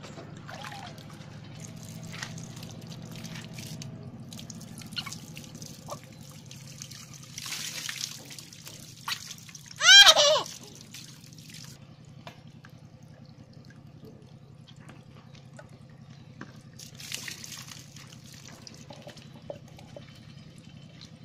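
Water pouring, trickling and splashing over a baby monkey being bathed, over a low steady hum. About halfway through there is one loud, high-pitched squeal, the loudest sound, as water runs over the monkey's head.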